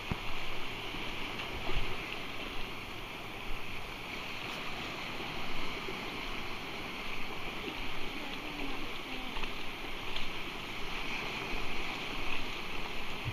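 Small ocean waves breaking and washing up a sandy beach: a steady rushing hiss of surf, swelling a little louder now and then.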